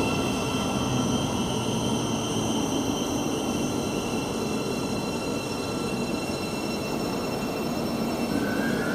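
Thameslink Class 700 electric multiple unit running at the platform: rail and running noise with a steady high-pitched electric whine in several tones that slowly drift down in pitch. Near the end a new whine starts to rise in pitch.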